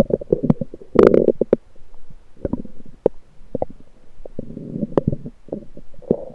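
Lower intestine gurgling, picked up through an electronic stethoscope on the belly: a loud gurgle about a second in, then scattered short pops and a softer, longer gurgle later on.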